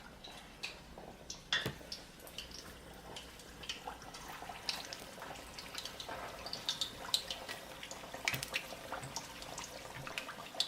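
Sliced ripe plantains frying in hot oil: a steady sizzle with many scattered crackles and pops.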